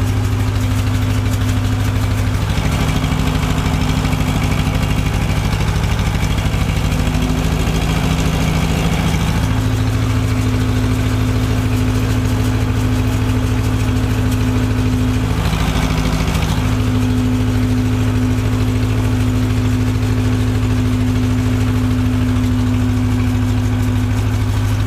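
Tractor engine running steadily under work. Its note changes slightly a few times, and a brief rush of noise comes about sixteen seconds in.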